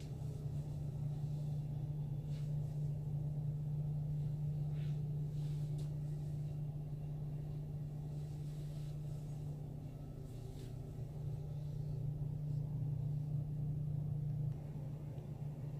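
Steady low hum of a yacht's onboard machinery, heard inside a cabin. It drops a little near the end.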